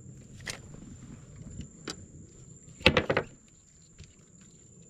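Fishing gear being handled in a small metal boat: a couple of single clicks, then a short clatter of knocks about three seconds in, the loudest sound. A thin steady high insect drone runs underneath.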